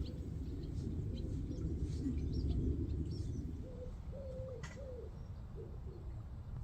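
A dove cooing, a run of short low notes starting about halfway through, over a steady low rumble. Faint chirps from small birds come in the first half.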